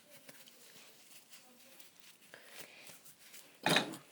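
Spoon stirring a thick slime mixture of detergent and baking soda in a bowl: faint for most of the time, with one short, loud scrape near the end.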